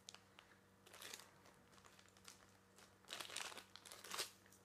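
Faint crinkling and rustling of packaging as a small piece of jewellery is unwrapped by hand. It comes briefly about a second in, then again for about a second from three seconds in.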